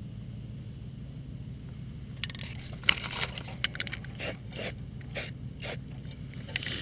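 Aerosol undercoating sprayed onto a truck frame in a string of short hissing bursts, starting about two seconds in, over a steady low hum.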